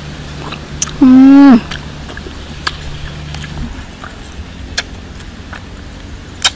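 A woman's loud, short hummed "mmm" while eating sweet wild red fruit, held about half a second and dropping in pitch at the end. After it come scattered light clicks and snaps of fruit being picked off leafy twigs.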